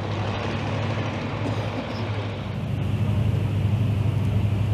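Boat engine idling: a steady, fast-pulsing low drone that gets a little louder about halfway through.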